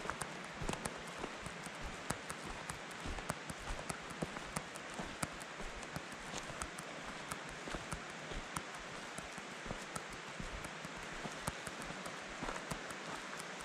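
Footsteps crunching on a gravel and dirt trail: many light, irregular crunches and ticks over a steady hiss.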